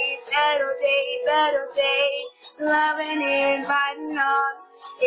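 A young female voice singing a slow pop melody in sustained phrases, with short breaks for breath about halfway through and near the end.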